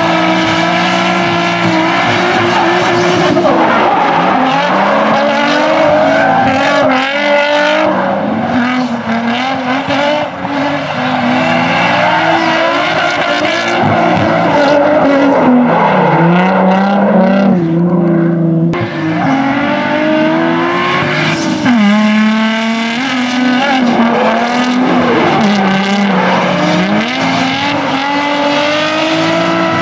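Drift cars revving hard through their runs, led by a Nissan 350Z: engine pitch climbs and drops again and again as the throttle is worked, over the hiss and squeal of sliding tyres.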